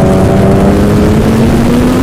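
A Yamaha's engine running under way, its pitch climbing slowly and steadily as it gains speed, over a heavy low rumble.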